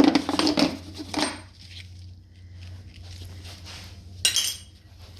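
Loose metal parts clinking and clattering as they are handled and lifted out during battery removal: a cluster of clanks in the first second and a half, then another short clatter about four seconds in.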